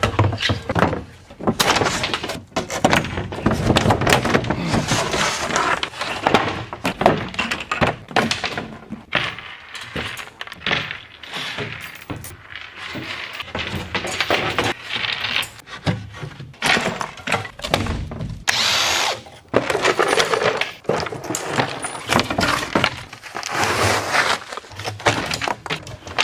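Demolition of a plywood camper interior: cordless drills running in short spells to back out screws, mixed with plywood panels cracking, being pried off a steel-tube frame and dropped with irregular thuds and knocks.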